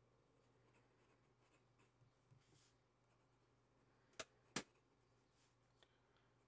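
Faint scratching of a Diplomat Aero fountain pen's fine steel nib writing on paper, with two sharp ticks close together about four seconds in.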